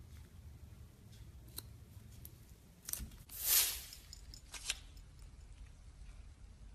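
Slime being squished and poked by hand: scattered small clicks and pops, with one louder squelch about three and a half seconds in.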